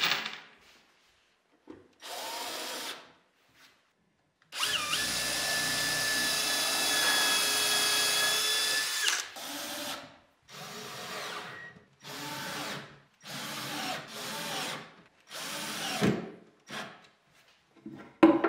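Cordless drill-driver driving wood screws into plywood: a short run, one long run of about five seconds with a steady whine, then five short runs of about a second each. It opens with a clatter of screws tossed onto a plywood panel, and a sharp knock comes near the end.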